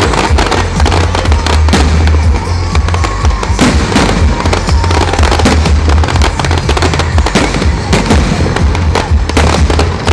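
Aerial firework shells bursting one after another in a loud, dense barrage of bangs and crackling.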